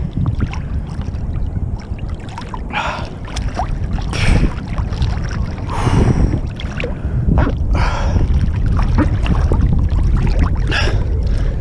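Seawater sloshing and splashing against a camera held at the surface by a swimmer in choppy water, over a steady low rumble of waves and wind on the microphone. A louder splash comes every couple of seconds.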